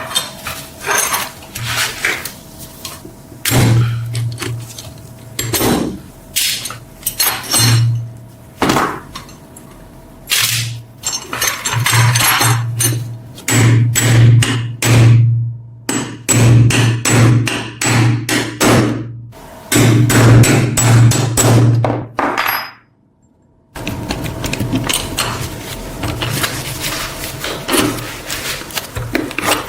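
Hammer strikes, coming in uneven runs of knocks, then stopping briefly about two-thirds of the way through before a steadier clatter of tool work.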